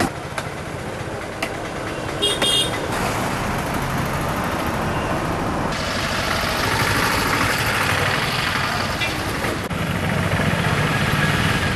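Roadside traffic noise, with vehicles passing and a short horn toot about two and a half seconds in; the traffic swells louder from about six seconds in.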